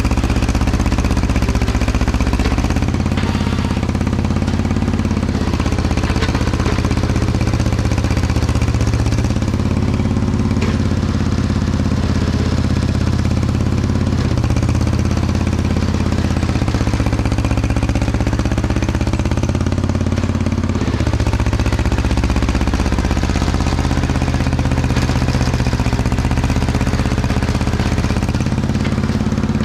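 Diesel engine of a tracked earthmoving machine running continuously at working speed, its pitch stepping up and down a little as the load changes.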